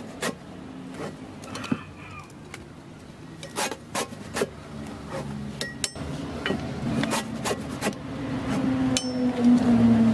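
A steel knife scraping and slicing through the rubber of a used truck tire, with sharp irregular clicks and knocks of metal against the rubber. An engine hum builds over the last two seconds and becomes the loudest sound.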